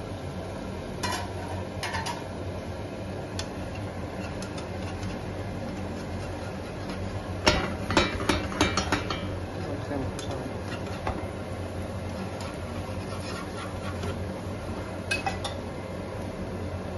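Cookware clinks and taps: a slotted spatula knocking and scraping against a frying pan as a flipped tortilla cooks. A quick run of taps comes about halfway through, with single clicks near the start and a couple near the end, over a steady low hum.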